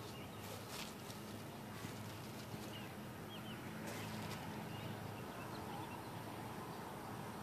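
Faint, steady outdoor background noise with a few faint, short, high chirps in the middle.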